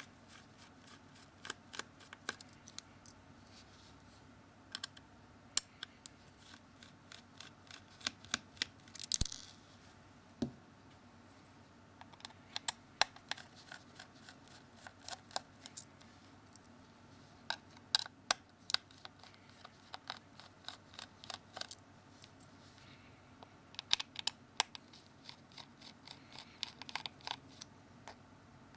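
Small Phillips screwdriver and fingers working screws out of a Samsung Galaxy S2's plastic case: scattered light clicks and ticks, with a brief scratch about nine seconds in and a single low knock just after.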